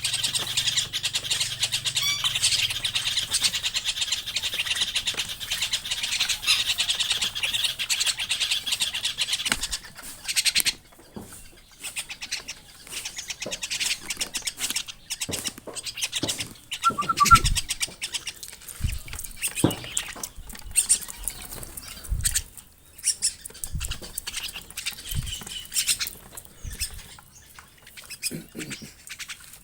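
A dense, harsh, rapidly pulsing bird call for about the first ten seconds, then scattered soft knocks and short calls.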